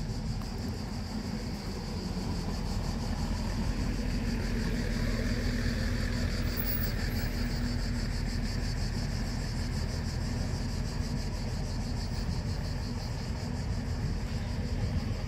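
Steady low rumble of an idling coach bus's diesel engine, holding an even pitch without revving.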